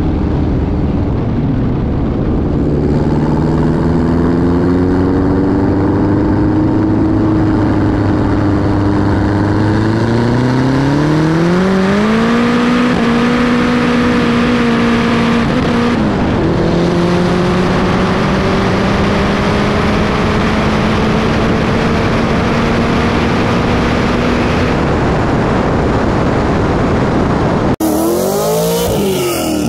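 Cars at full throttle in a roll race, led by the built Dodge SRT-4's single-turbo four-cylinder on E85 with a McLaren 720S alongside, over heavy wind rush. The engine's pitch climbs through the gears, rising steeply about a third of the way in, dipping briefly, then climbing slowly again. Near the end it cuts abruptly to a different engine revving up and down.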